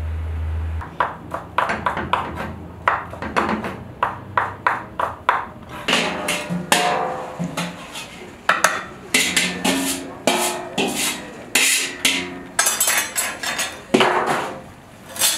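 A knife tapping on a wooden chopping board in quick strokes, then a metal skimmer clanking and scraping against a large steel basin and the kazan of plov, the metal strikes ringing briefly.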